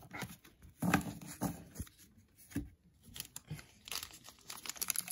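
Trading cards and a paper card-pack wrapper being handled: scattered short rustles and taps, with a louder burst of crinkling and tearing at the very end as the wrapper is opened.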